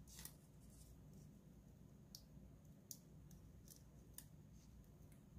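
Near silence with a few faint, scattered crackles as the backing sheet is slowly peeled by hand off a lettering decal.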